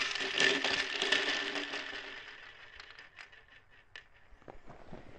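A roar dying away over about two seconds, followed by faint scattered clicks and crackles.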